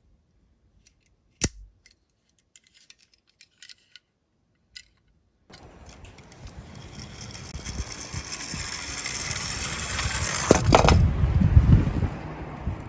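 A sharp tap and scattered small clicks, then, about halfway through, the rattling rumble of die-cast Tomica minicars rolling down a slope track. It grows steadily louder, with a couple of sharp knocks near the end.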